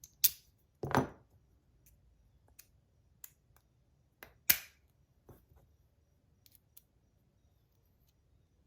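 Sharp metallic clicks and clacks from handling the parts of a copper fidget spinner and a bearing that has come out of it. Loud clicks just after the start, about a second in and about four and a half seconds in, with faint taps in between.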